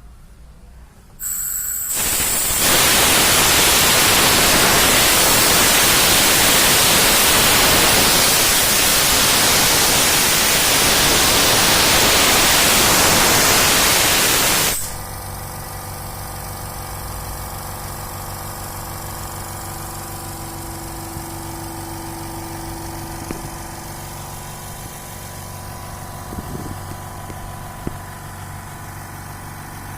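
Loud hiss of compressed air rushing out of a dental air compressor for about thirteen seconds, cutting off suddenly. After that the compressor's motor keeps running with a steady hum.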